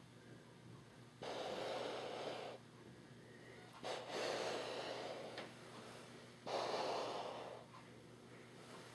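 A person breathing close to the microphone, with slow, even breaths about every two and a half seconds.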